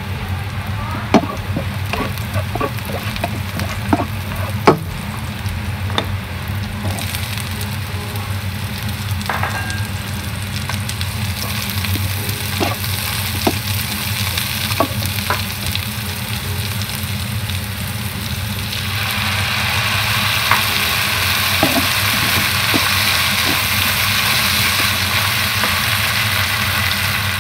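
Onion, garlic and celery sizzling in hot oil in a frying pan, with a spatula tapping and scraping the pan now and then, two sharp knocks in the first five seconds. About 19 seconds in the sizzle turns louder and stays so, as the shrimp sauce goes in and bubbles with the vegetables. A steady low hum runs underneath.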